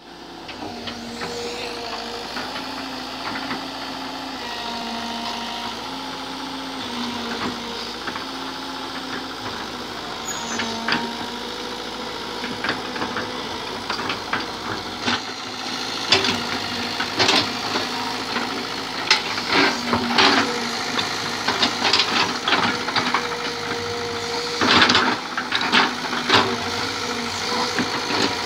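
Hitachi hydraulic excavator running, its engine note shifting up and down as it works. From about halfway through, frequent clanks and knocks join in, louder and more scattered toward the end.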